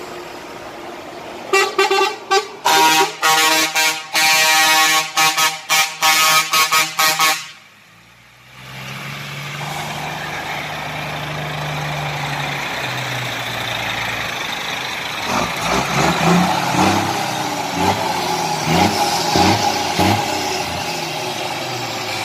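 Truck air horns blasting in a rapid series of short and longer honks for about six seconds. Then diesel truck engines run steadily, revving again and again over the last several seconds.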